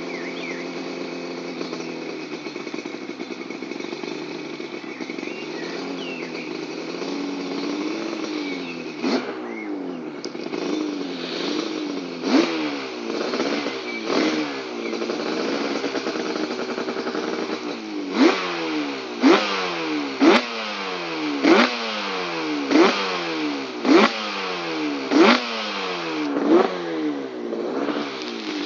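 Freshly rebuilt 1986 Yamaha RD350 YPVS two-stroke parallel-twin engine with Keihin PWK carbs and TSA expansion-chamber pipes. It idles steadily, then is revved in uneven blips from about nine seconds in. Over the last ten seconds come about nine sharp throttle blips, one every second or so.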